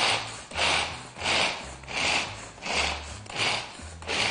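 Manual pull-cord food chopper worked over and over, about three pulls every two seconds. Each pull is a short whirring rasp as the blades spin through walnuts, chopping them fine.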